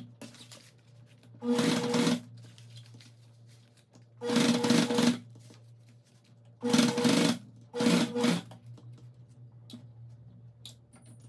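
Home sewing machine stitching in four short runs of under a second each, with pauses between.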